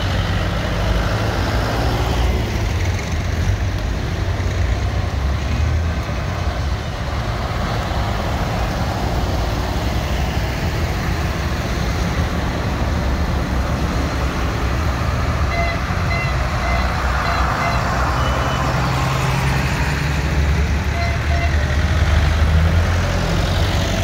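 Diesel engines of farm tractors (a Kubota, a John Deere and a Massey Ferguson) running as they drive past one after another. A short run of beeps sounds about two-thirds of the way through, and briefly again near the end.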